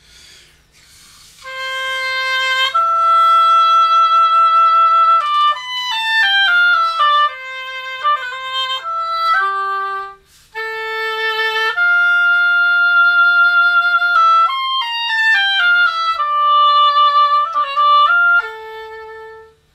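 Solo oboe playing a melody of long held notes joined by quick runs, with a short break about halfway through.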